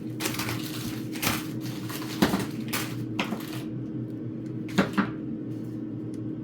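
Food packages being handled and set down into a bucket: rustling with a few sharp knocks, one about two seconds in and a pair near five seconds, over a steady low hum.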